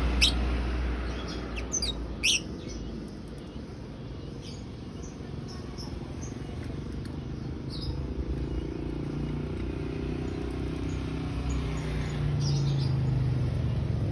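Lovebird chirping: a few sharp high chirps in the first couple of seconds, then fainter, scattered chirps, the twittering call that Indonesian keepers call 'ngriwik'. A steady low hum runs underneath.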